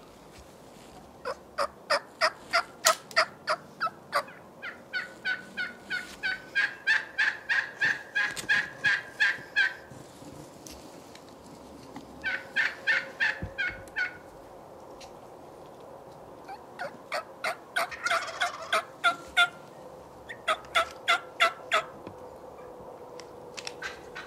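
Wild turkey yelping: five runs of loud, evenly spaced yelps at about four to five a second, with short pauses between the runs.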